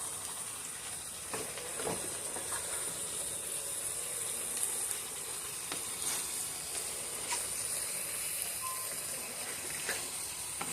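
Cubed beef, mushrooms, onions and garlic sizzling steadily in a pan over a high flame, with a few faint clicks.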